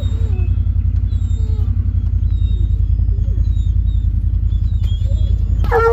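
Vehicle driving along a road: a steady low rumble of engine and road noise with rapid flutter. Faint wavering calls sound above it, and a louder pitched call comes right at the end.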